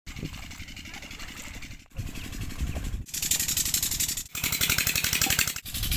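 An engine running with a fast, even chugging, chopped by several abrupt cuts. A loud hiss of rushing water lies over it in the middle stretch.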